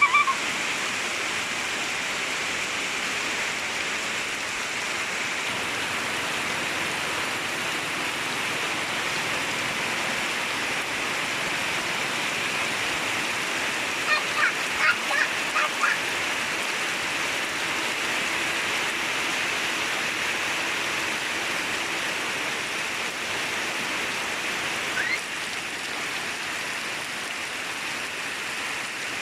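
Heavy rain falling steadily as an even hiss. About fourteen seconds in, a quick run of short pitched calls cuts through for about two seconds.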